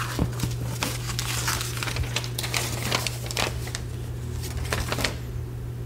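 A sheet of paper being handled over a cardboard box, rustling and crinkling in quick irregular scratches that die away about five seconds in. A low steady hum runs underneath.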